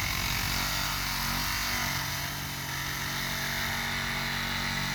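Cordless Craftsman 20V brushless reciprocating saw running steadily, its blade sawing through a tree trunk.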